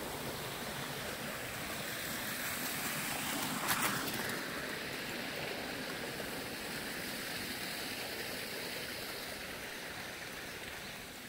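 Steady hiss of a stream's running water, with a brief crackling rustle about four seconds in.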